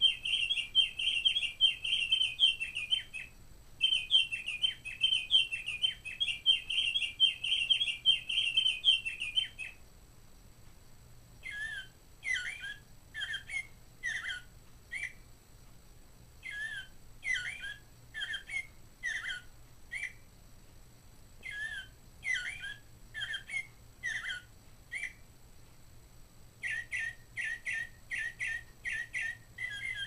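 Mark Feldstein singing bird clock playing its recorded bird songs, set off with the test button. A dense chattering song fills the first ten seconds. Then come three bursts of downward-slurred whistled notes, and near the end a fast run of repeated notes.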